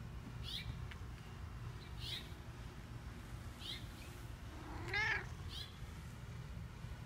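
A tortoiseshell cat meows once, a single call that rises and falls, about five seconds in. A bird chirps in the background, a short high call about every second and a half.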